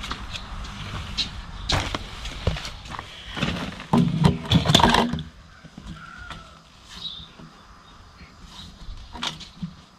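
Building-work clatter: a run of knocks and scrapes over a steady low motor hum, both stopping about five seconds in, then a few faint knocks.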